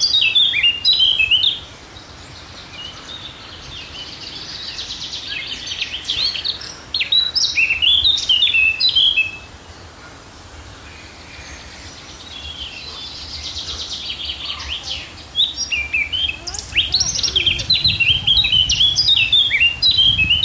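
A songbird singing in long bouts: a buzzy trill that grows louder, then quick high chirping phrases, twice over with a short pause between.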